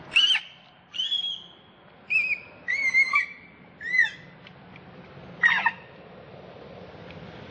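Young macaque crying in distress: about six short, high-pitched screaming calls, each bending up and down in pitch, spaced about a second apart.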